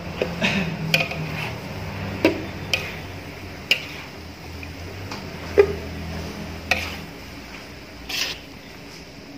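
A long metal spoon stirring and scraping noodles in a large metal wok. It strikes the pan in irregular sharp clinks, roughly one a second, the loudest about halfway through.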